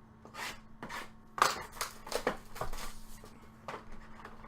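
A trading-card box and its packaging being handled and opened by hand: a run of sharp crinkling, scraping and tapping sounds. The loudest comes about a second and a half in.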